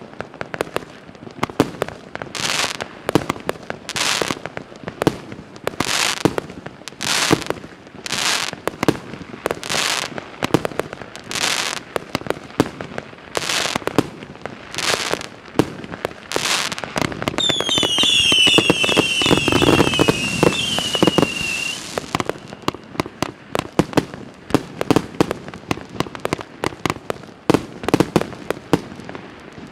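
A 137-shot mixed-calibre firework cake (battery) firing. Shells launch and burst about once a second. Partway through comes a cluster of whistles, each falling in pitch, over dense crackling, and then a rapid run of smaller shots and crackle.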